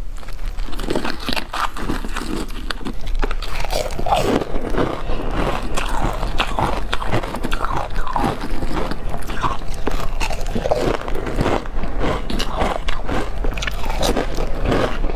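Ice chips coated in powdered milk being bitten and crunched between the teeth, close to a clip-on microphone: a continuous run of crisp cracks and crunches over a steady low hum.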